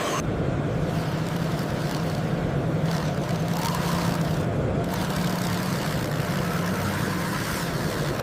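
Steady running sound of a radio-controlled scale model vehicle, a continuous low engine-like drone.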